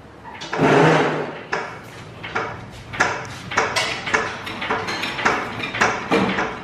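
A long-handled ratchet wrench worked back and forth at the rear differential of a Chevy Silverado, ratcheting about twice a second, as the cover is unbolted to get at the failed differential.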